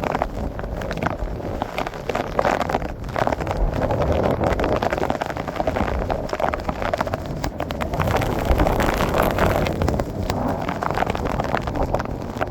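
Storm wind buffeting the microphone, with heavy rain and an uneven, gusty rush that rises and falls.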